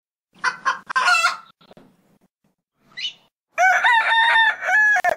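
Rooster giving a few short clucks and calls, then one long crow starting about three and a half seconds in.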